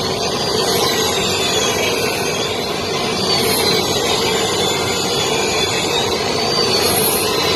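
Large circular table saw running and cutting wooden boards as they are pushed past the blade: a steady, loud mechanical noise with a high whine that rises and falls in pitch.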